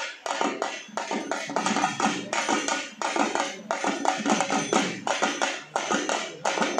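Several parai (Tamil frame drums) beaten with sticks in a fast, dense rhythm of quick strokes.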